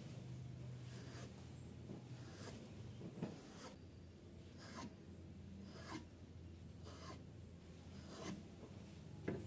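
A kitchen knife cutting strips into soft bread dough and scraping on a wooden chopping board. The strokes are faint, short and scratchy, coming about once a second.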